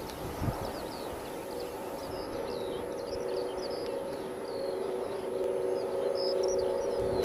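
Birds chirping in short, scattered calls, while a steady drone of several held tones grows louder from about two seconds in.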